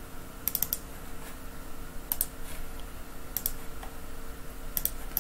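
Computer mouse clicks, in quick groups of two or three, four times over the few seconds, over a faint steady electrical hum.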